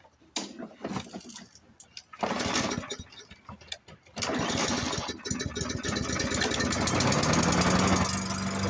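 Briggs & Stratton E450 single-cylinder four-stroke push-mower engine being pull-started: noisy pulls on the recoil starter, then it catches about four seconds in. It runs up in pitch and settles into a steady run near the end.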